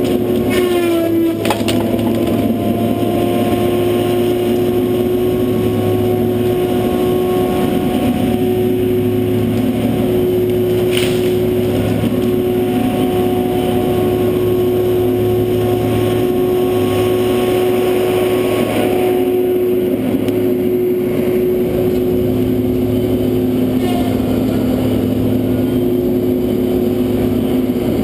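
John Deere 843J feller buncher running: a diesel engine hum under the steady whine of its spinning disc saw head. The whine dips in pitch about a second in, there is a sharp crack about a third of the way through, and the tone drops and changes about two-thirds through as the machine drives up close.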